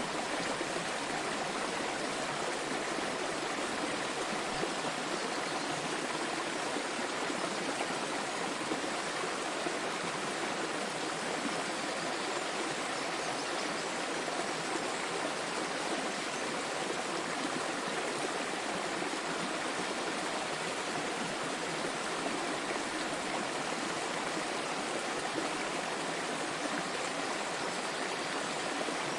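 A small waterfall splashing and rushing steadily, with no breaks or changes.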